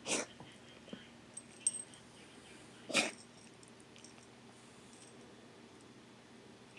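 A pet coughing: two short, sharp coughs about three seconds apart, with a few faint clicks between them.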